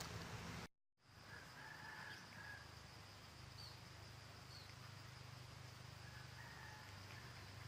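Faint outdoor ambience: a steady high insect drone with a few short bird calls, after a brief drop-out about a second in.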